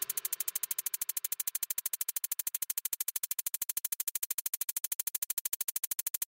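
Rapid, perfectly even clicking, about twelve clicks a second, with nothing else beneath it.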